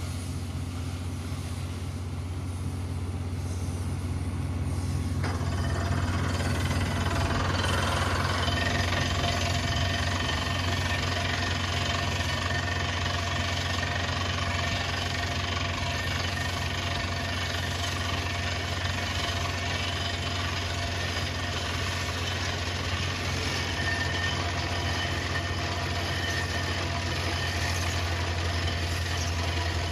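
Well-drilling rig's diesel engine running steadily with a deep hum. About five seconds in, a broad noise from the down-the-hole hammer drilling into rock joins it, and it grows louder about eight seconds in.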